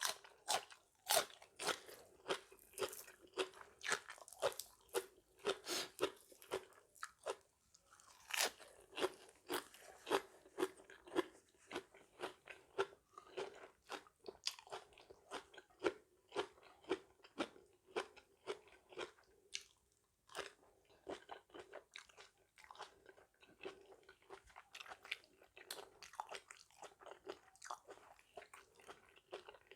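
Close-up chewing of crunchy raw water spinach, a crisp crunch about twice a second with short pauses between mouthfuls.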